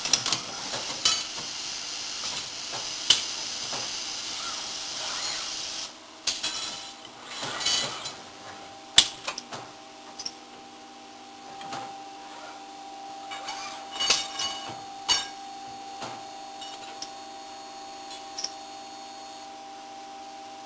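CNC electric tube bender with its loading robot working: sharp metallic clicks and clinks from clamps and tube handling. A steady hiss runs through the first several seconds, then gives way to a steady machine hum with a whine.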